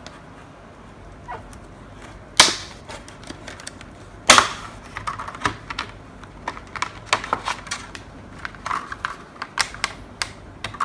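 Stiff clear plastic clamshell blister pack being prised open. Two loud snaps come as it pops apart, the first about two and a half seconds in and the second about two seconds later, followed by a run of small clicks and crackles of the plastic being handled.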